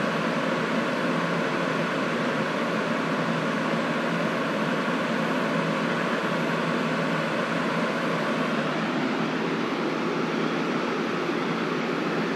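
Fire trucks' engines running steadily at idle, a constant even engine noise with no change throughout.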